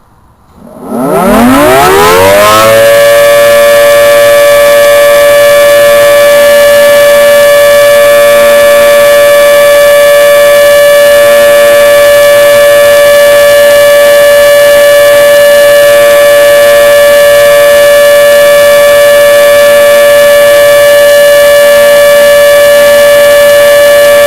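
Federal 2T22 electromechanical outdoor warning siren winding up from silence about a second in, its pitch climbing for about two seconds, then holding a steady, very loud two-tone chord for its monthly test.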